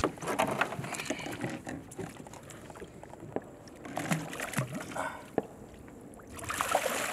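Water sloshing against a boat hull, with scattered light knocks and taps, as a hooked jack is hand-landed at the boatside. Near the end comes louder splashing as the fish thrashes at the surface.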